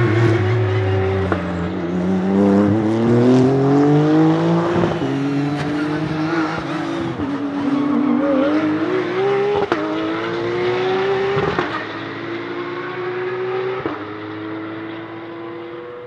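Honda NSX GT3 Evo22's twin-turbo V6 race engine accelerating hard through the gears, its pitch climbing and dropping sharply at several quick upshifts. It fades over the last few seconds as the car pulls away.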